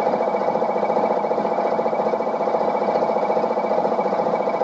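Narrowboat's diesel engine running steadily, with a rapid, even pulse.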